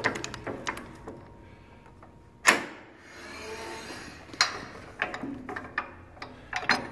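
Steel vise of an Ellis 3000 band saw being worked by hand: metal knocks and clicks, with one sharp clank about two and a half seconds in, then a scraping slide as the jaw is moved along its track, and lighter knocks after.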